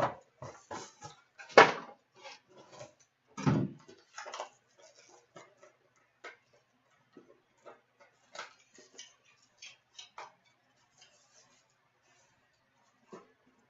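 Trading card box and its packs being opened and handled: irregular clicks, taps and rustling of cardboard and wrapper, with a sharp snap about a second and a half in and a thud about three and a half seconds in. The handling thins to occasional clicks after about five seconds.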